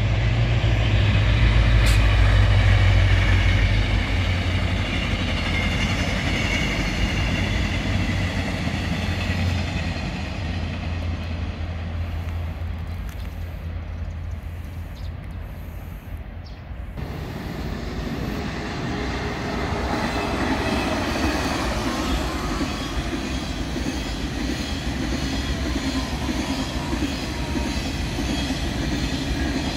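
Trains running on the line in two parts. A passing train is loudest in the first few seconds and fades away until the sound cuts off abruptly about halfway through. After the cut, a KTX high-speed train runs past, its noise building and then holding steady.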